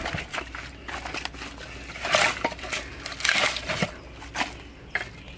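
A few separate scraping, crackling rasps of wood as an axe head is worked in a fresh chop in a log.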